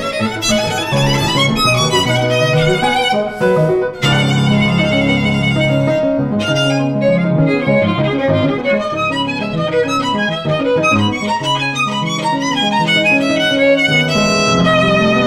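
Bowed violin and grand piano playing a jazz-influenced chamber duo piece together, with quick, busy lines of notes.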